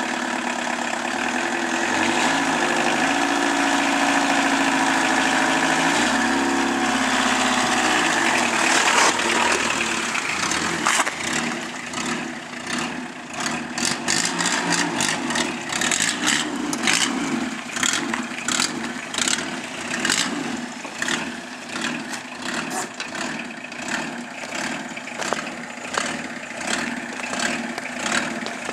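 Peugeot 205's diesel engine running, revved up twice in the first seconds and then settling into a rough, uneven rhythmic clatter of about two beats a second.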